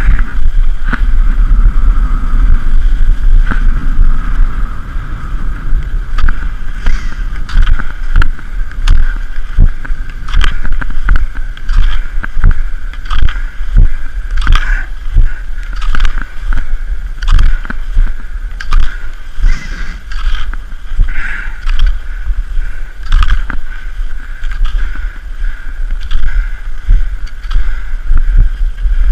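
Skate skis hissing over groomed snow, with a sharp scrape or knock at each stride, roughly one to two a second, over a steady low rumble of wind on the microphone.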